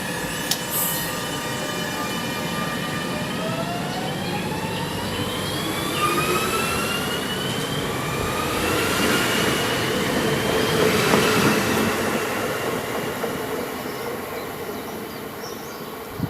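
Regional train (RB 45) pulling out of a station. A steady hum gives way, about three seconds in, to a whine that climbs in pitch as the train accelerates. It grows louder, then fades as the train moves away.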